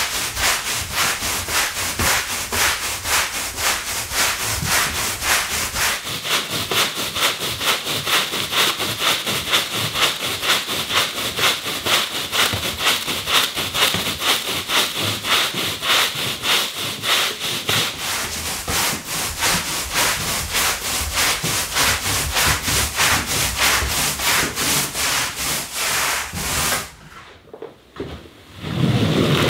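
Stiff-bristled push broom scrubbing a wet wool rug in quick, even back-and-forth strokes, working in an acidic rinse. Near the end the scrubbing stops and a louder squeegee stroke across the wet pile begins.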